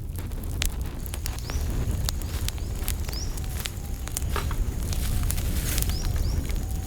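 Open cooking fire crackling, with frequent sharp pops over a low steady rumble.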